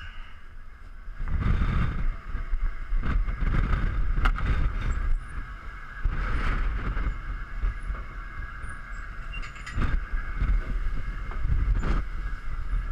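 Strong wind gusting across the microphone on a fishing boat's open deck in rough seas, a heavy rumbling buffet that surges and eases, rising sharply about a second in. A steady hum runs underneath.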